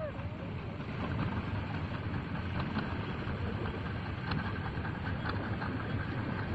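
Engine of a wooden river fishing boat running steadily as the boat passes, a continuous low hum that gets a little louder about a second in.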